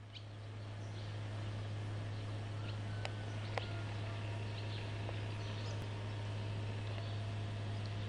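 Rural outdoor ambience on old camcorder audio: scattered short bird chirps over an even hiss and a strong, steady low hum.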